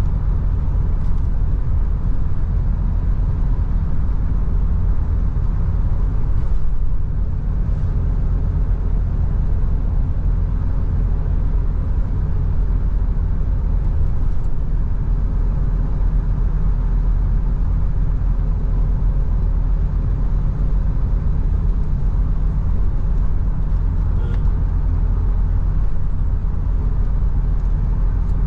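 Steady engine and road rumble inside the cabin of a Mahindra Bolero B6 cruising at speed, heard from the driver's seat. The Bolero's three-cylinder diesel runs evenly under the tyre noise.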